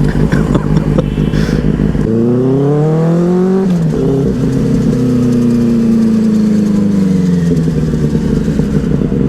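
Benelli 600i's inline-four engine, loud through a non-stock exhaust. It runs low for about two seconds, then rises sharply in pitch and drops off suddenly near four seconds. It then makes a second, slower rise and fall in pitch before settling back to a low steady run.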